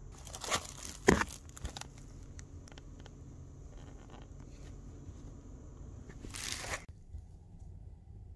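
Rustling and scraping handling noise in a small camper van's interior, with a cluster of knocks in the first two seconds, the sharpest about a second in. A longer rustle comes near the end, where a faint steady hiss stops.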